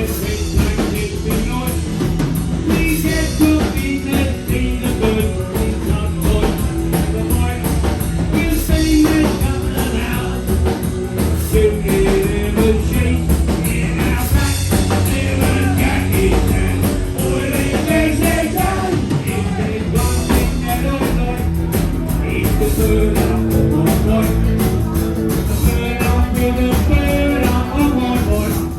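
Rock and roll band playing live, with a singing voice over the band.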